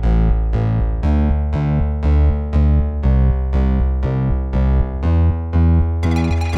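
Background music: synthesizer and electric-piano keyboard notes struck about twice a second, each fading, over a strong bass line. Near the end a quick high percussion beat comes in.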